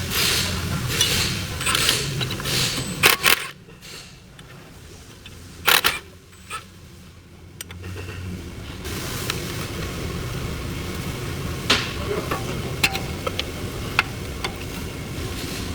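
Metal tools and parts being handled during brake work: irregular scraping and clanking, a few sharp metallic clicks, then a steady low hum with scattered light clicks from about the middle on.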